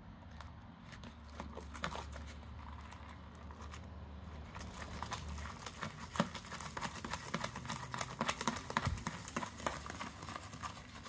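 Wooden craft stick stirring sticky slime in a plastic tub: a run of irregular small clicks and scrapes, getting busier in the second half.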